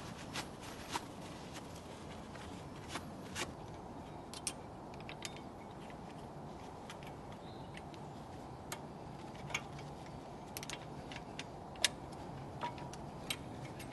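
Scattered light metallic clicks and taps as brake pads and their retaining spring and pin are handled and seated in a brake caliper, with one sharper click near the end, over a steady low hiss.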